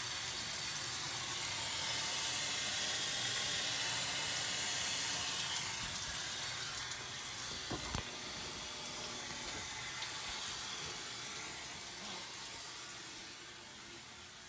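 Water running with a steady hiss, louder for a few seconds and then easing off, with a single sharp click about eight seconds in.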